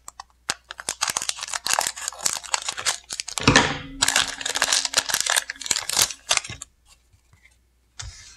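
A trading-card booster pack's foil wrapper crinkling and crackling as it is snipped open with scissors and pulled apart to get the cards out. The rustling stops shortly before the end, with one brief rustle after.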